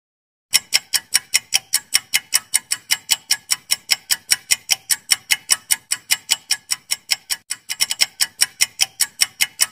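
Clock-ticking sound effect marking a quiz countdown timer: sharp, even ticks at about four to five a second, starting about half a second in, with a brief stumble in the rhythm late on.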